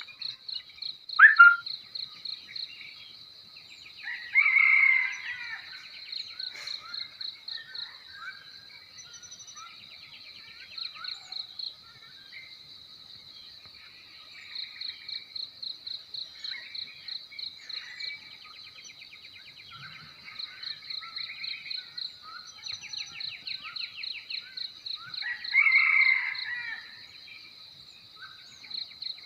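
Outdoor morning ambience of crickets chirping in steady high pulsing trills, with birds calling and twittering over them. Two louder calls stand out, about four seconds in and near the end.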